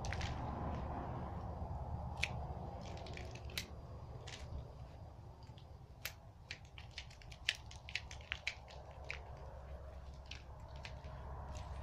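Hand pruning shears (secateurs) snipping the shoots of a chamaecyparis, a run of sharp, irregular snips that come thickest in the middle, over a steady low rumble.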